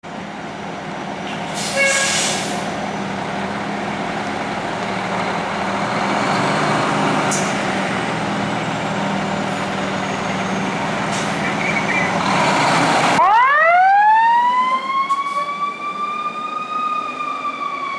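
Fire truck's diesel engine running and growing louder as the truck pulls out, with a brief sharp burst about two seconds in. About thirteen seconds in, a siren comes in with a long rising wail that levels off and begins to fall near the end.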